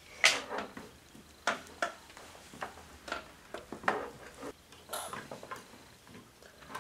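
Scattered short clicks and knocks of plastic toy parts being handled, about half a dozen irregular taps with quiet gaps between them.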